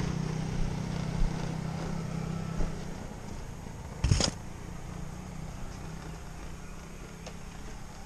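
Small motorbike engine running steadily, dying down after about three seconds. A short, sharp knock comes about four seconds in.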